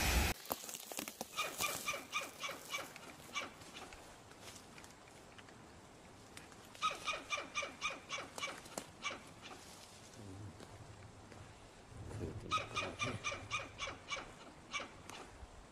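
A squirrel barking its alarm call: three bouts of rapid, evenly repeated short barks, each bout lasting about two seconds, with pauses between them.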